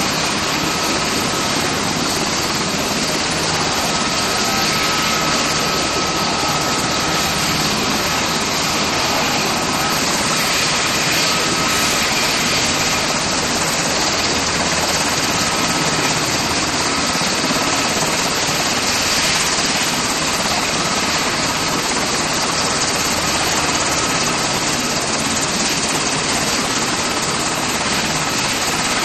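Helicopter turbine engine running, a steady even rush with a faint thin whine above it.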